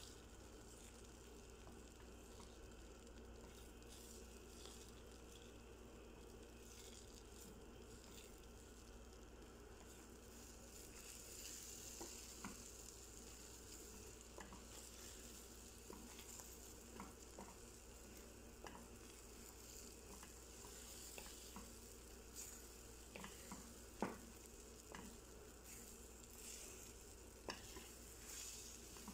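Beaten eggs sizzling faintly in a nonstick frying pan while a wooden spatula stirs and scrapes them. The sizzle grows a little louder about a third of the way in, and from then on the spatula gives scattered light taps against the pan, one a little louder near the end.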